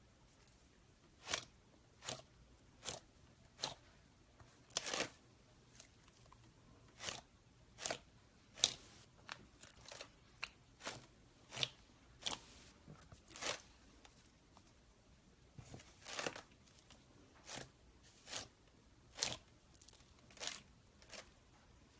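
Slime being pressed and squeezed by hand, giving a series of short crackling pops, a little under one a second, some louder than others.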